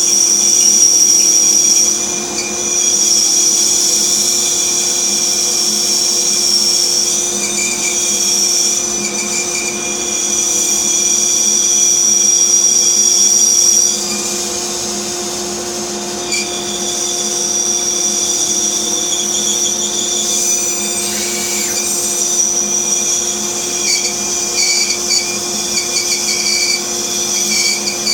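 Bandsaw running and cutting a wooden block along a traced line, a steady machine hum with a high whine that changes as the cut goes; the sound drops a little about 14 seconds in.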